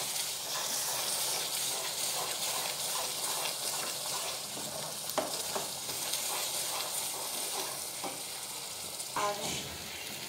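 Thick beetroot halwa sizzling in a pan as a spatula stirs and scrapes it, with a couple of light knocks of the spatula on the pan near the middle. The halwa is thickening into one mass and coming away from the sides of the pan.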